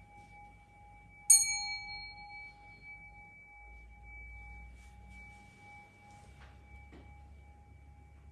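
Buddhist temple bells: a bowl-shaped bell rings on in a steady two-tone hum, and a small bell is struck once about a second in, its bright, high ring dying away within about a second.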